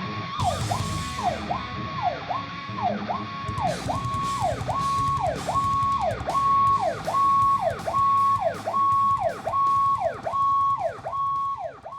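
Powercall UDX7 electronic emergency siren sounding through its speaker in a repeating cycle. Each cycle rises quickly to a held high note, holds it briefly, then drops, at about five cycles every four seconds, over a low rumble.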